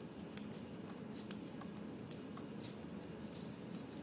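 Fresh basil leaves being stripped by gloved hands from their stems and dropped into a stainless steel colander: soft, scattered rustles and small ticks, irregular.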